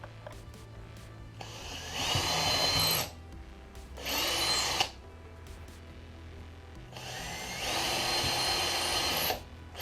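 Power drill boring pilot holes, in three runs: one about a second and a half in, a shorter one about four seconds in, and a longer one from about seven seconds. Each run starts with a rising whine as the drill spins up.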